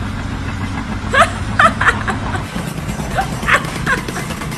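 A dog yipping about five times in two quick groups, short high barks over a steady low hum.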